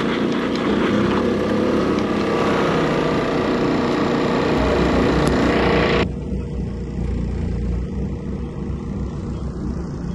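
An engine runs steadily throughout, with an abrupt change in level and tone about six seconds in.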